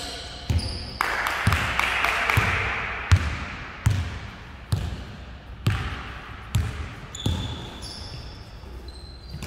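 Basketball being dribbled on a sports-hall floor, deep bounces about once a second with a hall echo, stopping about three quarters of the way through. Short high sneaker squeaks follow near the end.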